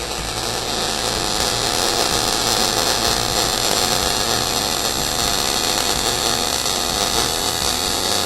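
Electric arc welder running a continuous weld bead on steel, a steady harsh hiss.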